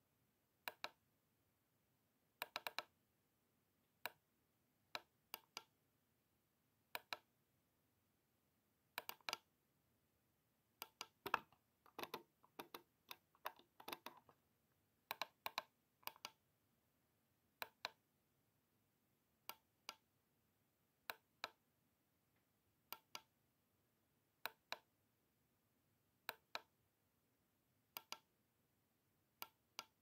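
Computer mouse buttons clicking, mostly in quick pairs like double-clicks every second or two, with a faster run of clicks about eleven to fourteen seconds in and near silence between them.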